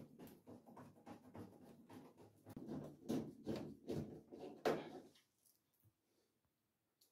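Irregular clicks, knocks and rattles of a tumble dryer's plastic and metal cabinet panels being handled and fitted with a screwdriver, with a few louder knocks about three to five seconds in. After that it falls nearly quiet, with one small click near the end.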